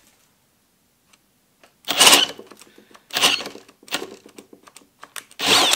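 Kobalt brushless hammer drill on speed 2 stalling with a 1.5-inch self-feed spade bit in wood: after a pause, the motor starts in three short bursts that stop almost at once, with scattered clicks between. The drill lacks the torque to turn the bit on this speed.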